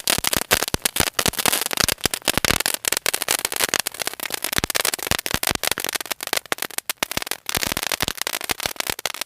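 A crackling firework going off in a dense, rapid run of small sharp pops and snaps, the 'chatter-batter' crackle.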